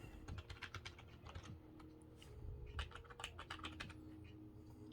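Keys of a Redragon S101 membrane gaming keyboard being pressed, quick clicking keystrokes in uneven bursts with short pauses between.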